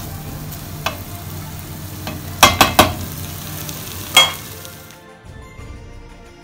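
Fried rice sizzling in a stainless steel pan as it is stirred, with the stirring utensil knocking sharply against the pan several times, loudest in a quick run of three about two and a half seconds in. The frying sound cuts off about five seconds in, leaving soft background music.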